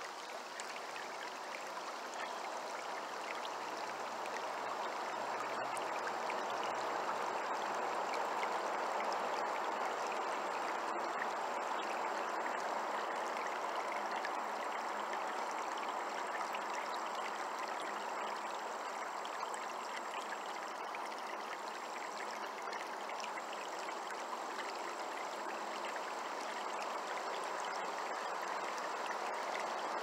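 Shallow stream running over rocks at close range, a steady babble of flowing water.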